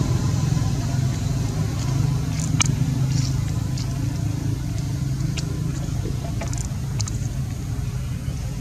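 A steady low engine drone, like a motor vehicle running nearby, with a few short sharp clicks over it.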